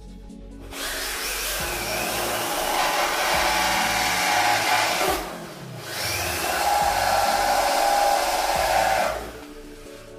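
Corded electric paint spray gun running while spraying paint: a steady motor drone with spray hiss, in two runs of about four and three seconds with a short break around five seconds in.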